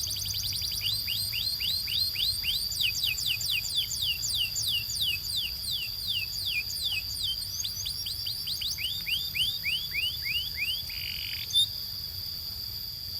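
Domestic canary singing a long rolling trill of quick down-slurred whistled notes, about four a second, with a brief pause partway, ending in a short buzzy note; a sharp click follows near the end, and a steady high tone runs underneath throughout.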